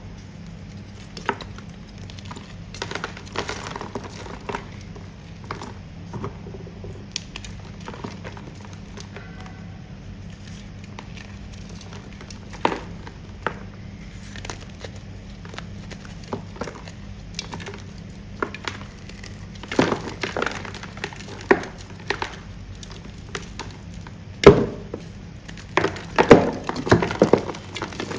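Firm pressed ('pasted') chalk crunching and cracking as it is bitten and chewed close to the microphone. The crunches come in scattered crackles, with louder clusters near the middle and end, over a steady low hum.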